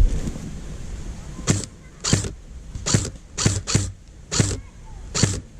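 Footsteps on dry ground cover, seven short crunching steps at an uneven walking pace.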